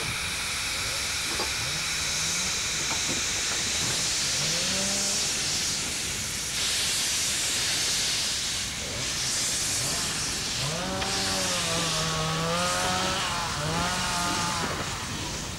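Steady steam hiss from a wood-fired 760 mm narrow-gauge steam locomotive, with steam escaping low down at the cylinders. In the second half, several wavering pitched calls of about a second each sound over the hiss.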